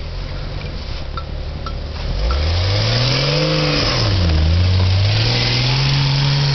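Jeep engine running low, then about two seconds in revving hard, dipping briefly and climbing again to hold high revs under load as it pushes through deep snow. Its bogger mud tyres churn and throw snow, with a hiss that rises along with the revs.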